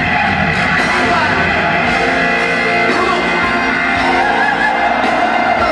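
A live rock band playing, with electric guitar holding long, sustained notes over the band.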